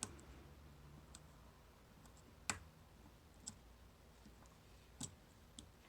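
Faint, scattered clicks of a dimple pick and tensioner working the pins inside a Mul-T-Lock Interactive cam lock, about six in all, the sharpest about two and a half seconds in.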